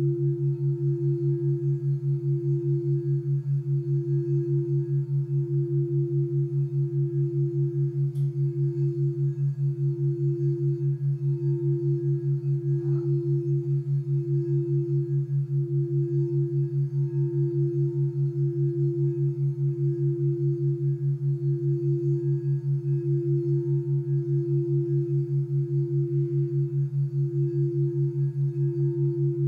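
Crystal singing bowl sustaining one steady ringing tone as its rim is circled with a wand, the tone dipping gently about every one and a half seconds. Under it runs a lower hum that pulses rapidly: the brainwave-entrainment background tones meant to bring on an alpha state of deep relaxation.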